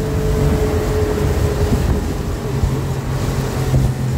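Outboard motor running as the boat travels at speed, with the wake rushing and wind buffeting the microphone. A higher steady engine note fades out about two seconds in, and a lower steady hum takes over.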